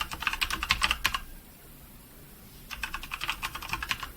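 Fast typing on a Patriot Viper V760 mechanical keyboard with brown switches: a rapid run of key clicks for about a second, a pause, then another burst near the end.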